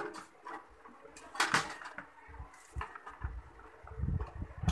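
Handling noise of insulated electrical wires and a plastic circuit breaker being picked up and moved about: a few light clicks and knocks, with soft low bumps near the end.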